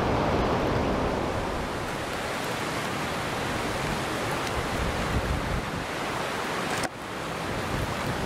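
Strong wind rushing and buffeting the microphone in a steady noisy roar that dips briefly about seven seconds in.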